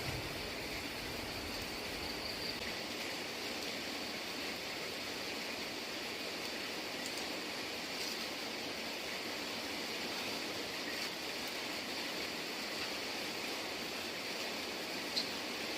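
Steady rain falling, an even hiss with a few faint sharper ticks.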